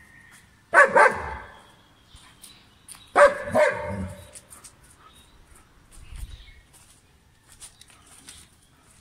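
German shepherd barking: two quick barks about a second in, then another two about three seconds in.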